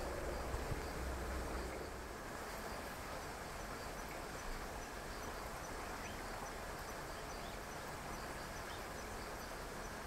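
Outdoor ambience in woodland: a steady background hiss with faint, evenly repeated high chirps from distant insects. A low rumble, like wind on the microphone, sits under the first two seconds.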